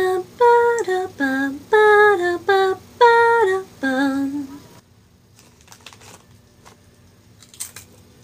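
A woman humming a tune to herself in a string of short held notes for about five seconds. After that, faint rustling and a brief crinkle near the end from a snack-chip bag as she eats.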